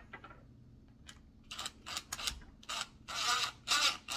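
Power drill driving a screw into the plastic chassis of a Traxxas Slash RC truck until it is tight. The sound comes as a run of short bursts, two or three a second, starting about a second and a half in and growing louder toward the end.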